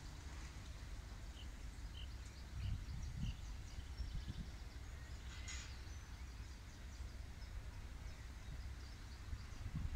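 Open-air ambience: a low steady rumble with scattered short bird chirps.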